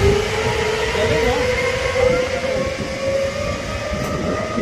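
Zipline trolley running along its steel cable, giving a whine that rises slowly and steadily in pitch as it picks up speed.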